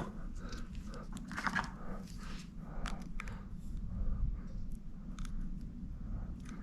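Irregular small clicks, crackles and scrapes as a protective flap over an external hard drive's circuit board is pried and pulled at by hand.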